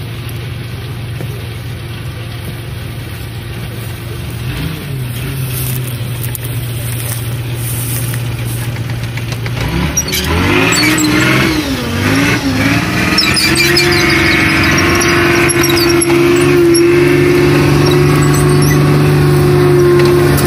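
A tracked StuG assault gun's engine running at a steady idle, then revving up about halfway through as the vehicle moves off. It then runs louder and steady as it drives up close, with track noise.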